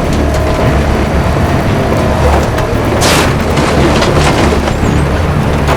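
Heavy diesel tow-truck engines rumbling steadily under load during a winch pull. A short hiss cuts in about three seconds in.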